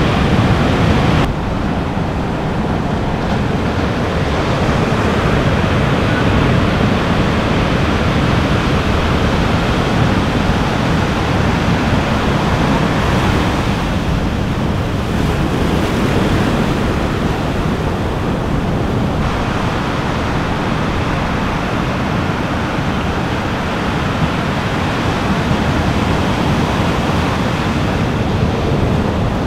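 Ocean surf: waves breaking and washing in as a steady rushing noise, with a small change in its tone about a second in.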